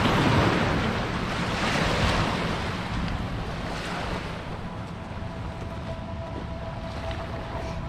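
Wind rushing over the microphone together with river waves washing on the shore, a broad rushing noise that is loudest in the first couple of seconds and then eases.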